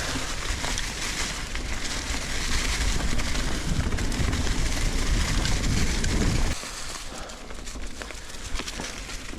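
Nukeproof Giga 290 mountain bike rolling fast down a dirt trail: a steady noisy rumble of tyres on the ground, with wind on the microphone. The rumble drops off suddenly about six and a half seconds in and stays quieter.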